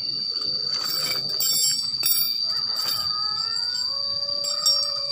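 Steady high-pitched insect drone, with a rooster crowing in one long, drawn-out, slightly rising call from about three seconds in. A few brief high pings sound about a second in and again near the end.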